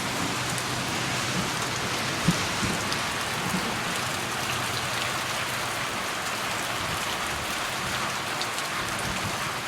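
Heavy rain falling steadily in a downpour, with a single sharp tick a little over two seconds in.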